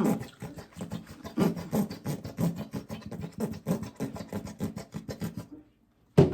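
Close-up chewing and crunching of crispy fried breakfast food: a dense run of quick, irregular crunches. It stops about half a second before the end, and one sharp click follows.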